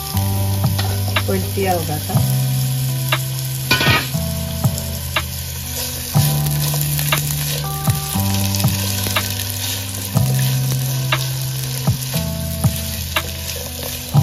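Chopped onions sizzling as they fry in hot oil in a pot, stirred with a spatula that taps and scrapes against the pan many times, with one louder scrape about four seconds in.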